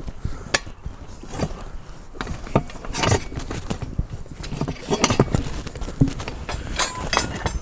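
Steel manual bead breaker of a Sealey TC960 tyre changer being levered down on a scrap tyre, giving irregular metal clanks and clinks from the lever and its pivots, a few of them ringing briefly near the end.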